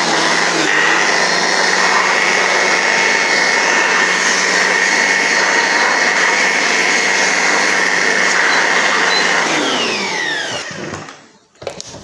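Handheld electric air blower running steadily with a high whine, blowing dust out of a table fan's opened base. About ten seconds in it is switched off and its pitch falls away as the motor spins down.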